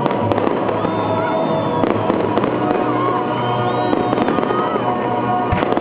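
Fireworks display: a dense, continuous crackle of many small pops, with one heavier bang near the end.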